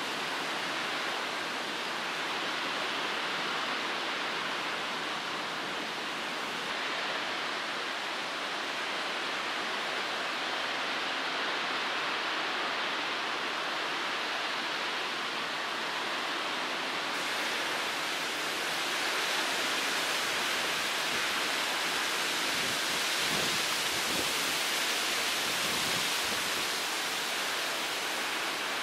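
Steady rushing, hissing noise of water churned up by a large Ro-Ro cargo ship's propeller and thrusters as it manoeuvres to berth. Some low rumbling comes in about two-thirds of the way through.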